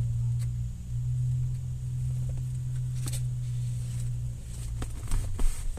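Steady low hum of a car idling, heard from inside the cabin, easing off near the end, with a few faint clicks and rustles.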